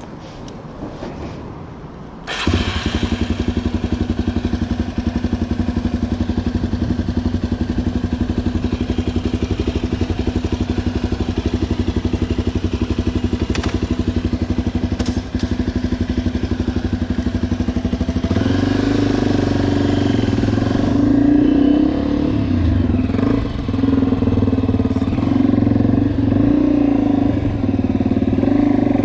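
Honda XR250's single-cylinder four-stroke engine comes in suddenly about two seconds in, as if started, and idles steadily. About eighteen seconds in it is revved and the bike pulls away, the engine note rising and falling as it rides.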